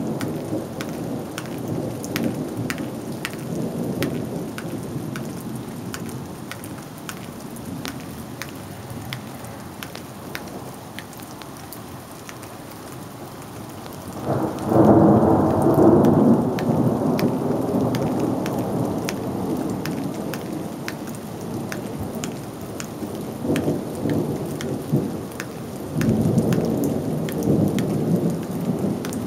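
Thunderstorm: thunder rumbling over steady rain, with a loud peal about halfway through that rolls off over several seconds and another rumble near the end. Raindrops tick close by throughout.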